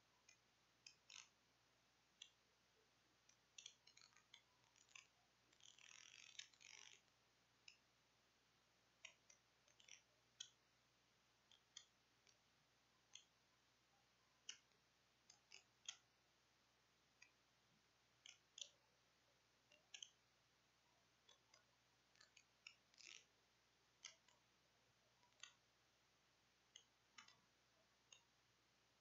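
Near silence with faint, irregular small clicks scattered throughout, and a denser run of clicking about six seconds in.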